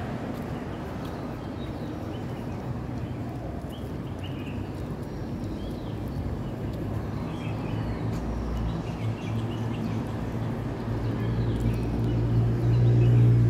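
Roadside street ambience: a steady traffic rumble with a few faint bird chirps, and a vehicle's engine hum growing louder near the end.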